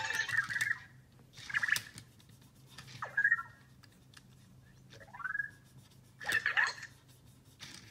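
Anki Vector home robot making about six short electronic chirps and warbles, a couple of them gliding up or down in pitch. These are its happy responses to being praised and petted on the head.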